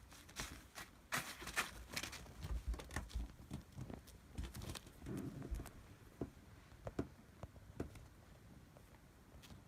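Kittens scrambling and pouncing in a fabric cat tunnel: irregular rustling of the tunnel with light thumps and quick paw taps, busiest in the first half.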